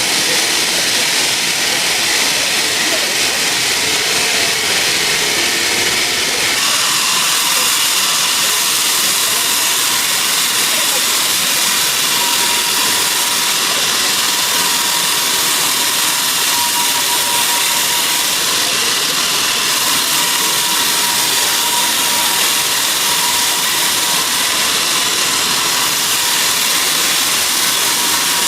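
Sawmill saw running steadily through a teak log, a loud continuous rushing noise; the sound shifts brighter about six seconds in.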